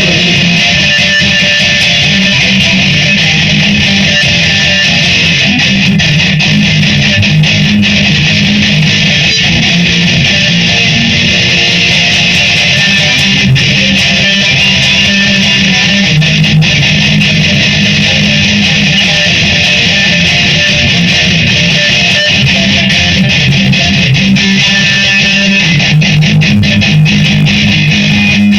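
Guitar strummed steadily in an instrumental passage, with no singing.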